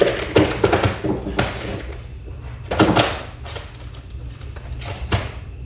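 Clicks, knocks and rattles of tools and small parts being handled on a workbench, busiest in the first second and a half, with a brief scrape just under three seconds in and another knock a little after five seconds.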